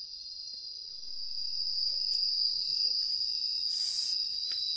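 Night insects singing: a steady, continuous high-pitched trill that grows louder about a second in. A brief rustling noise comes shortly before the end.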